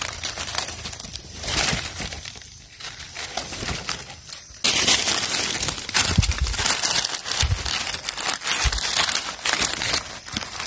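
Dry fallen leaves rustling and crackling as a hand brushes through and pulls at thick leaf litter, growing louder about halfway through.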